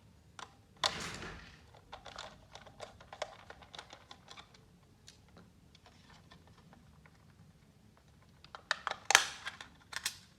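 Light clicks and taps of hard plastic being handled as a toy Thomas locomotive is unpacked and its battery compartment opened. The clicks come scattered, go quiet for a stretch, then come as a louder cluster near the end.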